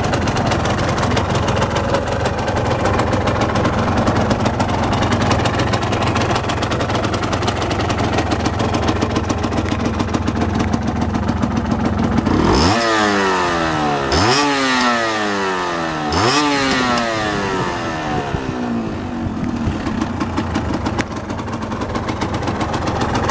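Yamaha Lanza's rebuilt two-stroke single-cylinder engine idling steadily, then blipped three times about halfway through, each rev climbing sharply and dropping back before it settles to idle again.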